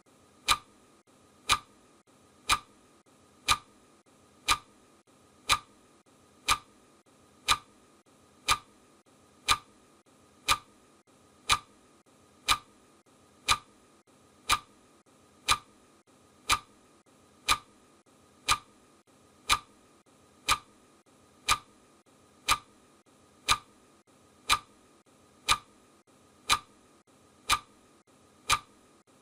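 Clock ticking steadily, one crisp tick a second: a countdown timer's ticking sound as it counts down.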